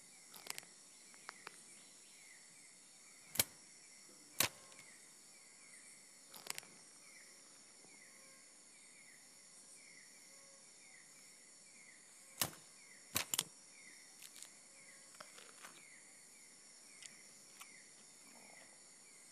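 Rainforest insect chorus: a steady high-pitched drone with a short chirp repeating about twice a second. Sharp cracks break through it about half a dozen times, loudest a few seconds in and again about two-thirds through.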